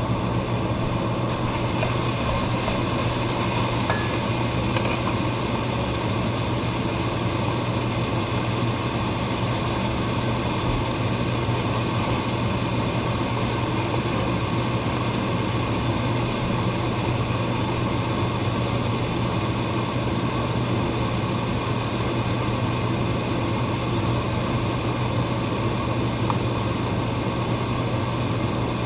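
A steady, unchanging machine hum with a strong low drone. Any knife strokes on the wooden board are lost beneath it.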